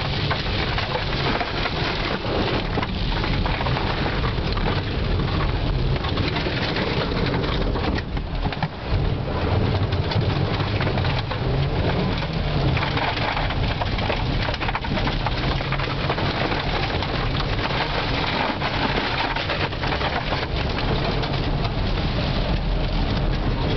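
Toyota Tercel's 1.5-litre DOHC four-cylinder engine pulling hard, with tyres crunching over wet gravel and stones and water pelting the car, a continuous loud rush full of sharp ticks.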